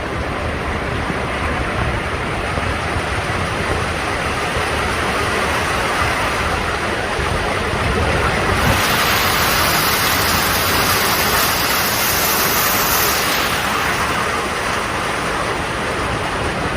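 Steady hiss of a heavy summer downpour. About halfway through it turns brighter and hissier for about five seconds, then settles back.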